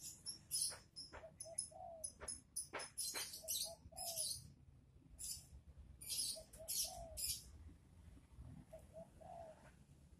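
A dove cooing in a repeated phrase of three short coos and a longer one, about four times. Many short high chirps from small birds come in between.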